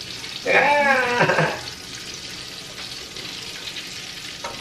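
Shrimp frying in hot oil, a steady sizzle. About half a second in, a person gives a short wordless vocal sound over it that lasts about a second.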